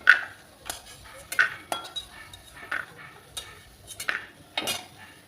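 A utensil scraping and tapping in a kadai (Indian wok) as fried bori (sun-dried lentil dumplings) are lifted out of the oil. The sound comes as about eight separate short strokes.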